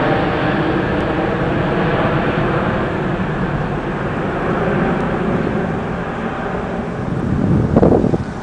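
Jet engines of a twin-engine airliner climbing out after takeoff, a loud steady roar that slowly fades as the aircraft draws away. Near the end a short gust of wind buffets the microphone.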